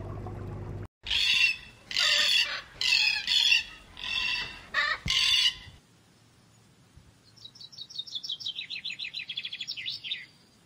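Birds calling: a run of about six loud, harsh squawks, then a quieter fast trill that falls in pitch over about three seconds.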